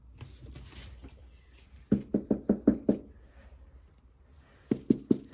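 Knocking: a quick run of about six knocks, then three more about two seconds later.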